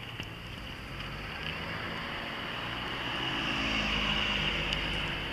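An engine running and passing by, with a low hum that grows louder toward about four seconds in and then eases.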